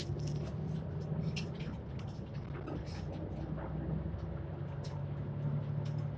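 Mitsubishi Fuso Aero Star city bus (PKG-MP35JM) diesel engine idling steadily while the bus stands still, with scattered short high ticks over the low hum.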